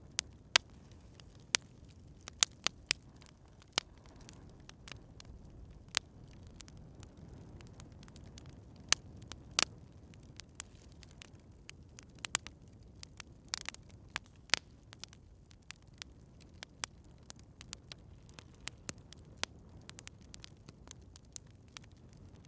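Campfire crackling: irregular sharp pops and snaps, several loud ones in the first half and smaller, quicker ones later, over a faint low rumble of the burning fire.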